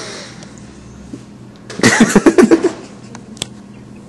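A young man laughing: a breathy exhale at the start, then a burst of several quick laughs about two seconds in.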